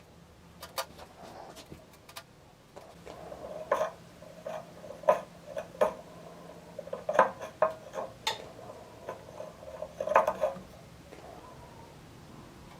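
Irregular clicks and light metallic clinks of small metal parts and hand tools being handled on a hard work surface. They are densest from about four to ten and a half seconds in.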